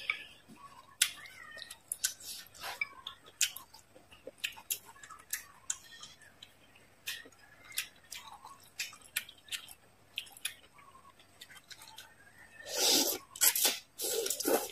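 Close-miked mouth sounds of chewing food, with many short wet clicks and smacks. Near the end there is a louder run of biting and chewing as grilled squid is bitten.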